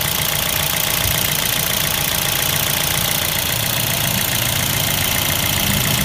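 Four-cylinder petrol car engine idling steadily with the hood open, running smoothly with no sign of a fault after its PCV valve was cleaned.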